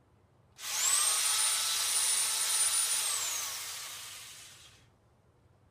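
Corded Sun Joe electric pole chainsaw run free: the motor starts suddenly about half a second in and spins up with a rising whine, holds a steady high whine, then winds down with a falling pitch once the trigger is let go, fading out about a second before the end.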